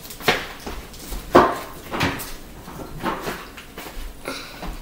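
A few scattered knocks and bumps as a kitchen cabinet door is opened and shut, the loudest about a second and a half in.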